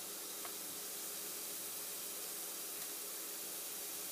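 Minced garlic sizzling in a frying pan, a steady hiss, as it is stirred with a silicone spatula and slowly browned.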